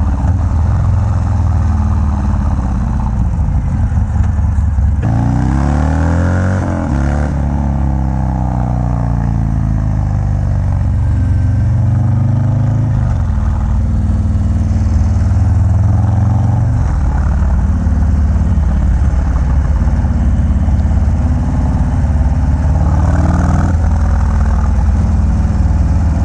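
Harley-Davidson FXDR's V-twin, bored out to 117 cubic inches, running loud through a Bassani Road Rage 2-into-1 exhaust while being ridden. The exhaust note is steady, with its pitch changing sharply about five seconds in and again near the end as the revs change.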